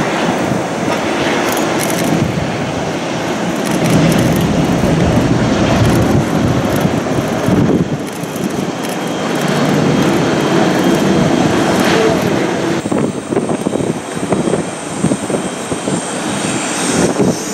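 Boeing 777 jet airliner on its landing approach, its engines heard as a steady, loud rushing noise with a deep rumble underneath.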